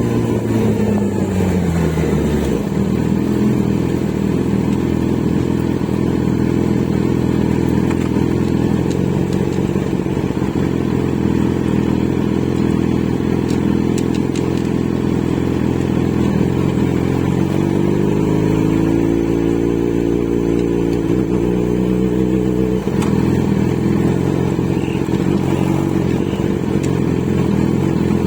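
Kawasaki Z900 inline-four engine and exhaust running under way. The engine note falls over the first couple of seconds and holds steady for a long stretch. It then rises with acceleration, drops sharply about two-thirds through and climbs again near the end.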